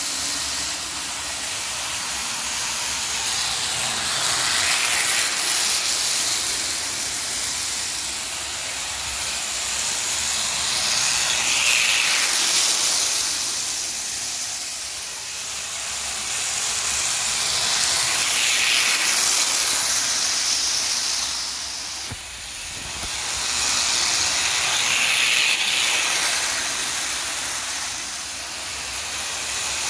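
Lionel postwar O scale steam locomotive and freight cars running round a loop of track: a steady rushing noise of the electric motor, gears and wheels on the rails, swelling each time the train passes close, about every seven seconds.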